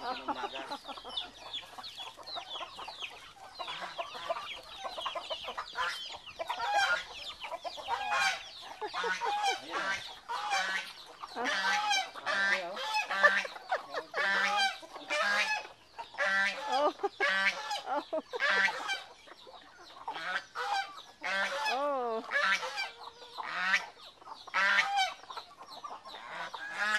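A flock of white domestic geese honking over and over, in quick runs of loud calls that come thickest after the first few seconds.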